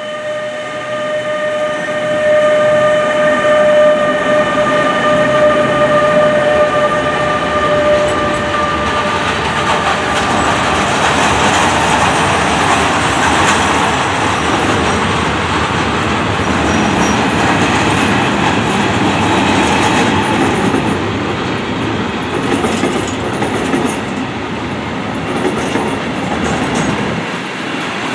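SNCB class 28 (Bombardier TRAXX) electric locomotive passing close by with a steady whine for the first several seconds. A long train of tank wagons follows, rolling past loudly, the wheels rumbling with scattered clicks and clatter.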